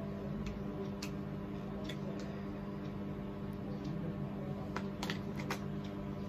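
Steady low room hum with a few faint, short clicks and taps, as a lipstick is handled and dabbed on skin.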